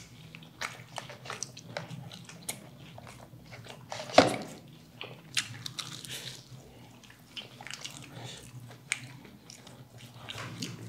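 Close-up eating sounds of crispy fried chicken and fries: crunchy bites and chewing, full of small crackles, with one louder bite about four seconds in.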